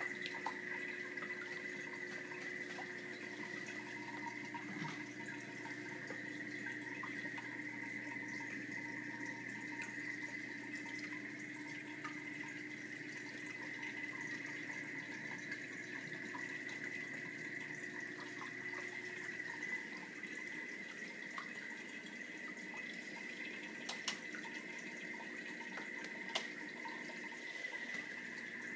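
Saltwater reef aquarium's water circulation: a steady trickle and rush of moving water with a constant humming tone underneath.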